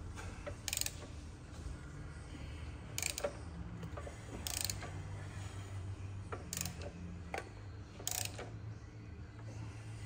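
Hand ratchet clicking in five short spells, one every second and a half or two, as the Alfa Romeo 156's 2.5 V6 Busso engine is turned over slowly by hand to check that the new cam belt keeps the cams in time. A low, steady hum runs underneath.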